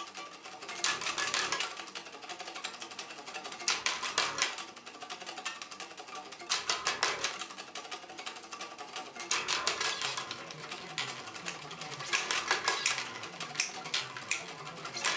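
Unamplified electric guitar and electric bass playing a fast death metal song, heard only as the bare strings' dense, rapid clicking and plinking, with louder surges of picking every few seconds.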